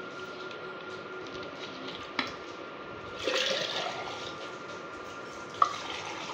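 Liquid splashing and swirling in a glass jug as khatta pani (tamarind water) is stirred, with a louder sloshing burst about three seconds in. A sharp glass clink comes near the end as the jug is tipped to pour into a drinking glass.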